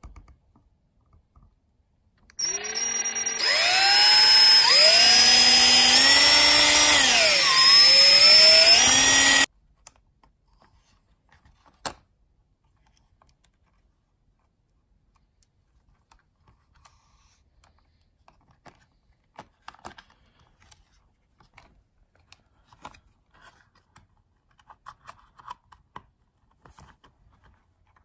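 Power drill whining as its bit bores holes through a thin plastic soap box. The motor's pitch climbs as it spins up, sags once in the middle as the bit bites, recovers, then cuts off after about seven seconds.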